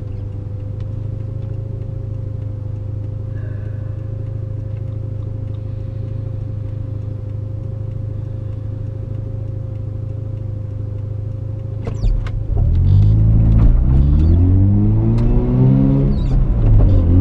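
1985 Mazda RX-7 GSL-SE's 13B rotary engine idling steadily, heard from inside the cabin; about twelve seconds in it revs up as the car pulls away, the pitch climbing and dropping back with upshifts through the gears.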